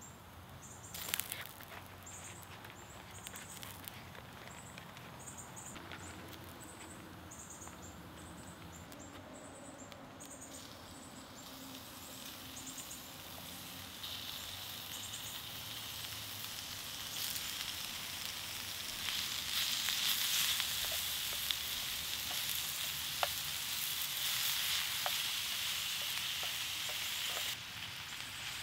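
Beef mince and onions sizzling in a frying pan over campfire embers, the hiss building and getting louder once the raw meat is crumbled in, with small ticks of a wooden spoon stirring. The first half is quieter: a brief rustle about a second in and repeated faint high chirps.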